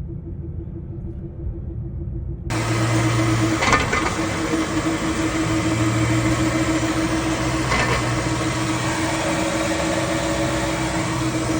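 Vehicle running with a steady low hum, which the owner puts down to a worn propeller shaft centre bearing support. About two and a half seconds in the sound turns suddenly louder and brighter, and there are two brief knocks.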